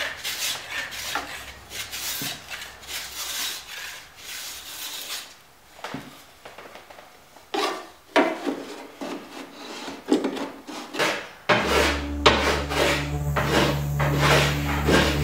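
Repeated filing strokes of a hand tool on a thin cedar strip, shaping it to fit a gap in the kayak hull's planking. The strokes come in runs with a pause partway through. A steady low hum joins about three-quarters of the way in.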